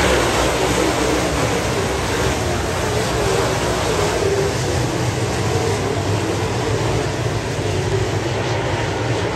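A pack of dirt-track race cars running at racing speed around the oval, their engines blending into one loud, continuous drone whose pitch wavers up and down as cars go past.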